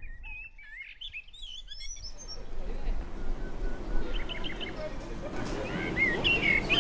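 Small birds chirping in short, quick high calls. Under them, outdoor background sound with faint voices of passers-by builds up from about two seconds in.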